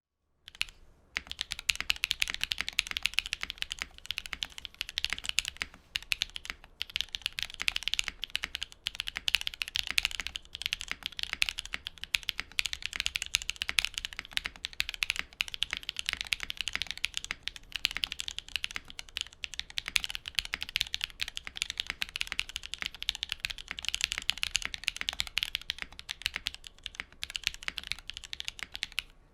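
Continuous typing on a Think6.5 V2 mechanical keyboard with a full polycarbonate case, brass weight and FR4 plate, fitted with Techno Violet switches lubed with 205g0 and doubleshot ABS keycaps: a rapid, steady run of key presses with a couple of brief pauses.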